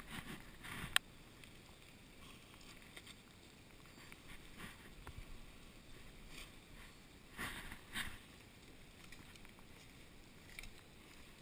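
Faint scuffing and rustling of footsteps on gravel and hands handling a fish and line, with a sharp click about a second in and a few louder scrapes near eight seconds in.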